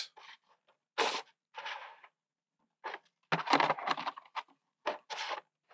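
Thin plastic food containers being handled and pushed into one another: a series of short crinkling, scraping plastic noises, thickest in the middle.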